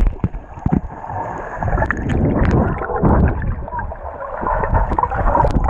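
Water sloshing and gurgling close to a GoPro Hero4 Session's microphone, with many sharp knocks and bumps from the camera being handled.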